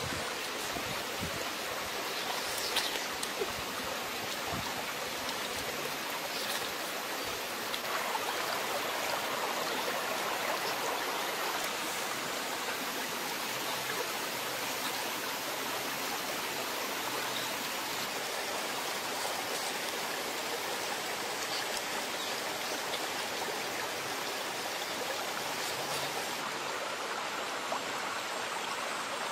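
Small forest stream running over rocks: a steady rush of water, with a couple of short clicks about three seconds in.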